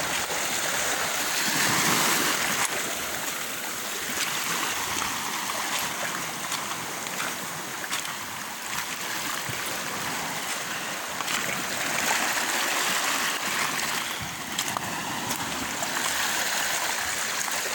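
Small waves washing in over the rocks and pebbles at the water's edge: a steady rushing wash, with a few light clicks.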